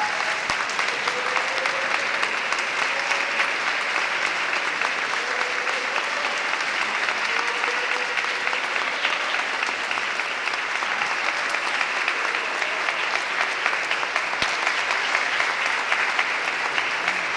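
A large audience applauding steadily, with a few faint voices in the crowd.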